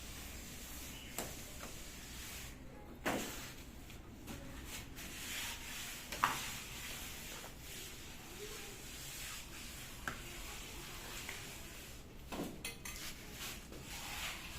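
Steel plastering trowel scraping and knocking against cement plaster, in scattered short strokes several seconds apart over a steady hiss.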